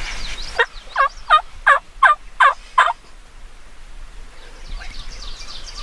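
Wild turkey gobbler gobbling: a fast rattling run of about seven notes, starting about half a second in and lasting a couple of seconds. Fainter bird chirping follows near the end.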